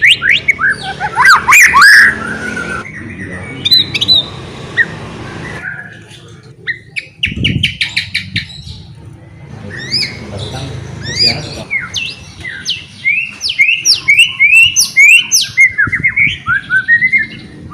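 White-rumped shama (murai batu) singing: a varied run of loud whistled phrases and rapid downward-sweeping notes, with a brief lull about six seconds in before a fast series of descending notes.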